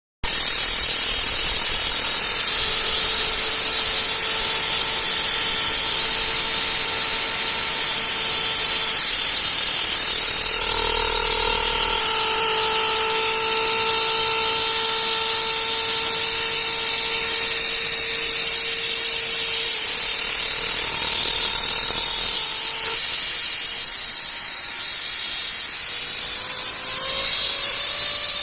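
Loud chorus of insects buzzing continuously at a high pitch, with fainter steady lower tones underneath.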